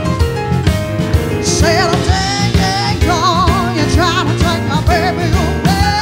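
Live band music: a woman singing sustained notes with a wide vibrato over a drum kit, a low bass line and keyboard.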